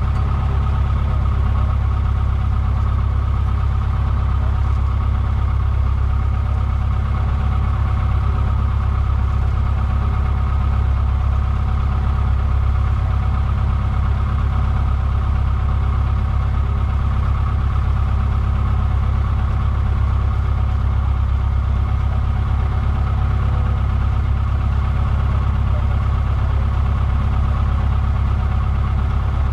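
Cessna 150's four-cylinder Continental O-200 engine and propeller running steadily on the ground, heard from inside the cabin as an even, loud low drone.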